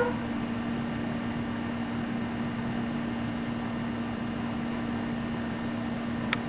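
Steady low mechanical hum over even hiss, with one sharp click near the end.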